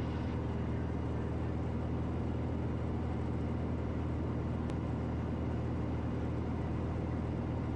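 Piper Malibu's single piston engine and propeller droning steadily in the cockpit at constant cruise power. There is a faint tick a little past halfway.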